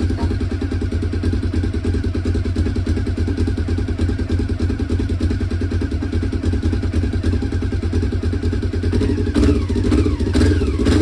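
1996 Honda CB500's parallel-twin engine idling steadily. From about nine seconds in, the throttle is blipped a few times, the revs quickly rising and falling.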